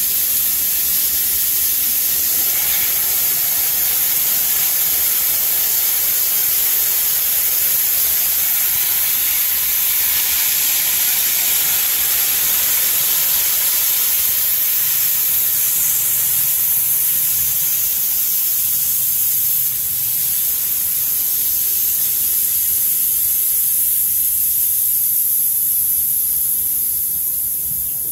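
Compressed air hissing out of an Air Venturi Avenger PCP air rifle as it is degassed through a screw cracked loose with an Allen key. A loud, steady hiss that begins to weaken near the end as the pressure runs down.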